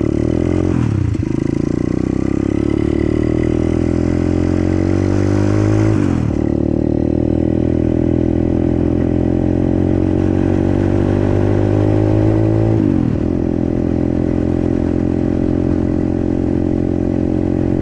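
125cc dirt bike engine pulling away under load, its pitch climbing through each gear and dropping sharply at three upshifts about one, six and thirteen seconds in, then holding steady at cruising speed.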